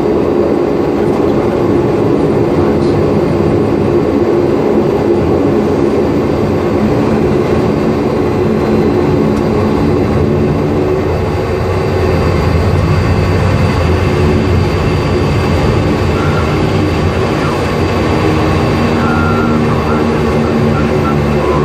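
Fokker 50's twin turboprop engines and propellers running at low taxi power, a steady drone with several held tones, heard from inside the cockpit as the airliner taxis back along the runway after landing.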